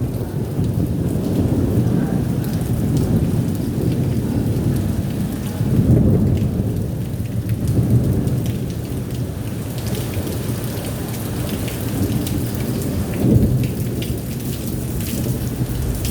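Steady heavy rain with low rolling thunder that swells a few times, most strongly about six seconds in and again near thirteen seconds.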